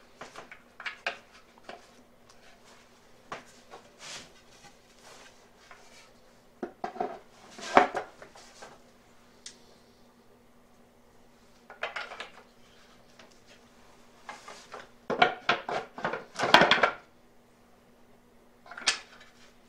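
Hardwood parts of a knock-down saw bench knocking and clattering together as maple rails are fitted into Baltic birch end pieces and wedged tight. Light scattered knocks, with louder bursts of clatter near the middle and again near the end.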